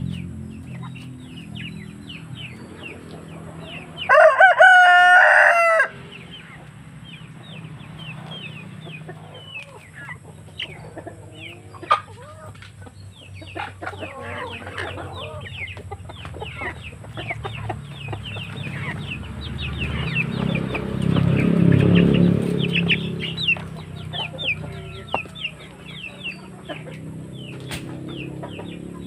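Backyard chickens clucking and calling, with a rooster crowing once for about two seconds about four seconds in, the loudest sound. Many short, high calls come and go throughout.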